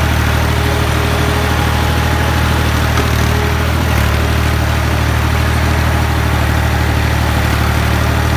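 Al-Ghazi tractor's diesel engine running steadily, heard up close from the driver's seat while it pulls disc harrows over tilled soil. The engine note shifts slightly about four seconds in.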